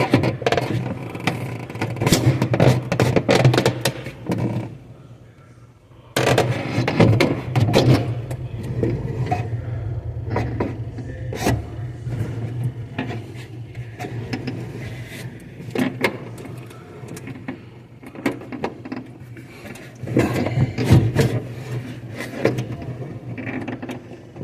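Irregular scraping and clicking handling noises over a steady low hum, with a brief lull about five seconds in.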